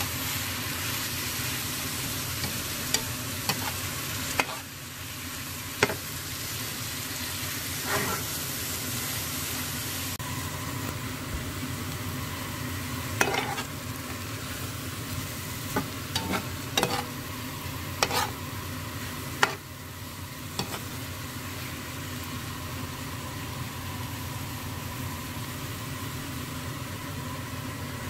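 Squid and vegetables sizzling in a hot frying pan while being stir-fried with a slotted metal spatula: a steady frying hiss with scattered sharp clacks and scrapes of the spatula against the pan.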